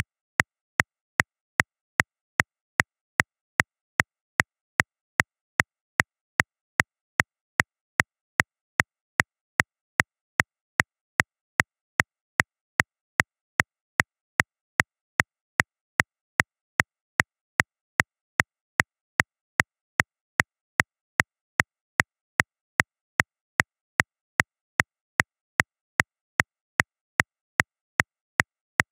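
Metronome clicking steadily at 150 beats per minute, about two and a half sharp clicks a second.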